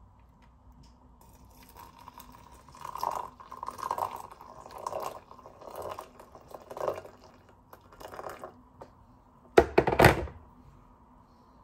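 Household handling noises: about six short noisy bursts, roughly one a second, then two sharp knocks near the end, over a faint steady hum.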